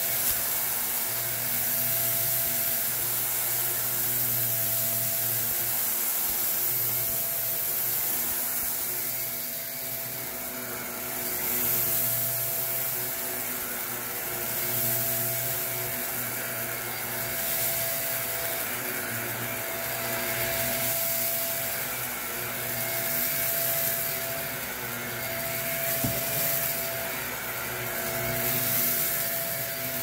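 Upright bagless vacuum cleaner running on carpet with a steady motor whine and rushing air, sucking up small crunchy fragments with a crackling crunch. The sound swells and eases every few seconds as the cleaner is pushed back and forth.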